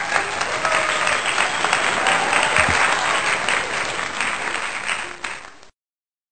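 Crowd applauding, a dense patter of many hands clapping that cuts off abruptly near the end.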